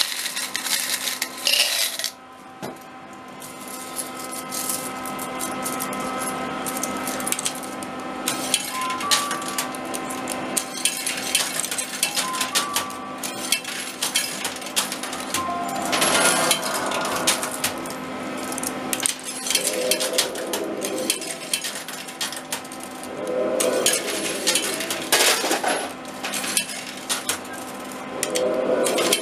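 Coin pusher arcade machine: metal coins clinking and clattering as they drop onto the playfield and are pushed against the piles, many small clicks in a row over a steady background hum.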